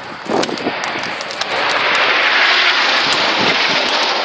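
Jet noise from a formation of nine Hawk jet trainers, each with a single Rolls-Royce Adour turbofan, swelling about a second and a half in to a loud, steady rush as they fly past.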